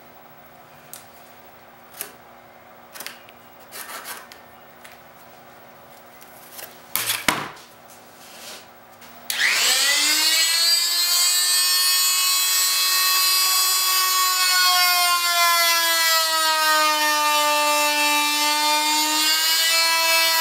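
A few knocks and taps of handling, then a Fein MultiMaster oscillating tool starts about halfway through with a rising whine and runs on as a steady, high-pitched buzz. Its round blade is cutting a notch in a plexiglass sheet, and the pitch dips and recovers as the blade bears into the plastic.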